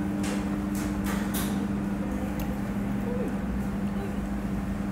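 Steady low machine hum holding two even tones, with three short hissy noises in the first second and a half.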